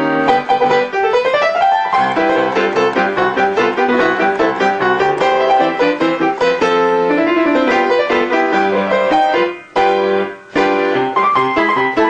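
Background piano music: a fast, busy keyboard piece with quick runs of notes, including a rising run about a second in. It breaks off briefly twice near the end.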